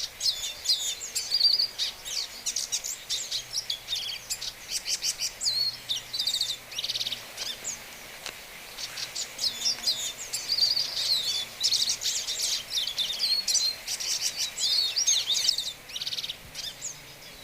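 Hooded siskin singing: a long, rapid, twittering song of high chirps and trills in two runs, the second starting about halfway through after a brief pause and ending shortly before the end.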